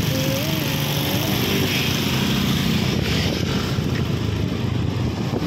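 Motorcycle engine running steadily on the road, with a short wavering tone near the start.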